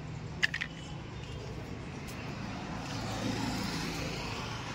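Street traffic noise with a steady low hum, swelling as a vehicle passes about three seconds in. A single sharp click about half a second in.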